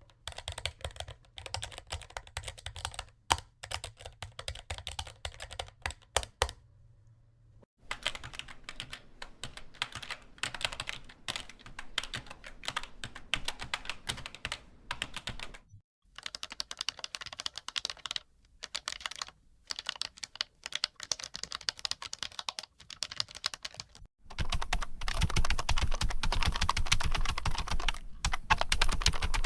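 Computer keyboard typing: rapid key clicks in four stretches, each from a different keyboard, separated by short pauses. The last stretch is the loudest and densest.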